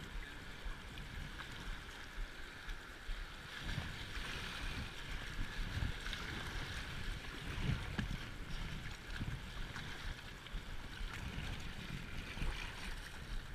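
Whitewater river rushing, a steady hiss, with irregular low thumps now and then.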